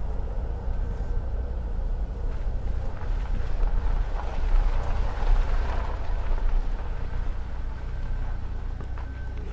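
Road and engine noise heard from inside a moving car: a steady low rumble with a hiss of tyre and wind noise that swells slightly midway.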